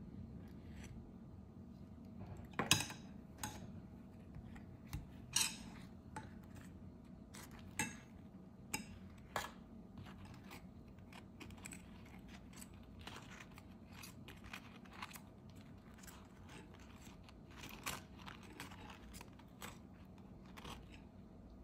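Kitchen utensils and dishes being handled: scattered light clicks and clinks, a couple of sharper knocks in the first six seconds, over a faint steady hum.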